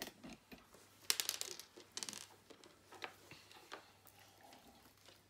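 Smarties candies being picked up and set down on a wooden floor: a few light scattered clicks, with a tight cluster about a second in and single taps around two, three and nearly four seconds in.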